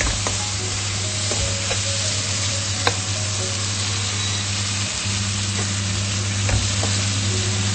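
Prawns, sliced onions and masala sizzling steadily in a nonstick kadai as a steel spoon stirs them, with a few light taps and scrapes of the spoon on the pan; the onions are frying down dry. A steady low hum runs underneath.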